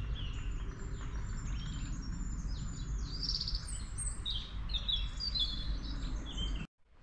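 Songbirds singing in woodland: many short chirps and trills overlapping, over a steady low rumble. The sound cuts off suddenly near the end.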